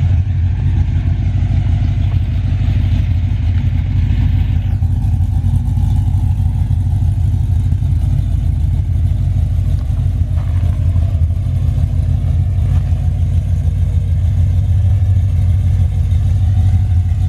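Ford Lightning pickup's V8 engine running with a loud, steady low exhaust note, with a hiss over it that stops about five seconds in.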